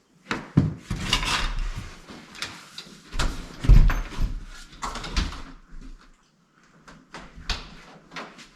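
Knocks, clunks and rattles from work on an exterior door being fitted into its frame, with the heaviest thud about four seconds in.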